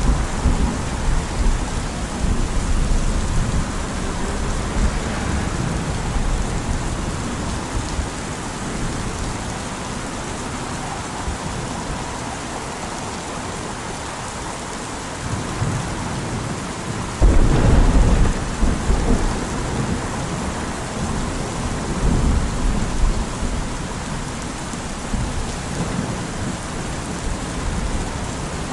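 Steady rain falling, with rolling thunder. A loud rumble of thunder comes in suddenly about two-thirds of the way through and rolls on for a few seconds, and smaller rumbles follow.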